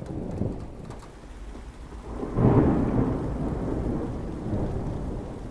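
Thunderstorm sound effect played by a Gemmy Halloween antique-radio prop: steady rain hiss, with a loud thunder rumble that swells about two seconds in and slowly fades.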